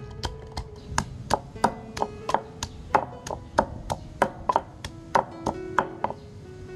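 Wooden pestle pounding shallots, garlic and herbs in a wooden mortar, with steady strikes at about three a second.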